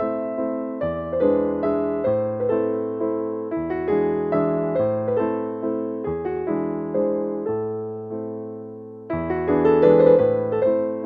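Background piano music: notes struck and fading over a slowly changing bass, softer for a moment just before nine seconds in.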